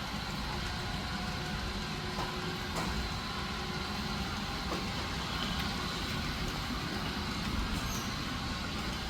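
Model train running on the layout: a steady low rumble with a few faint clicks.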